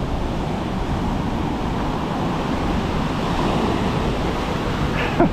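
Heavy storm surf washing and breaking along the beach in a steady wash of noise, with wind buffeting the microphone.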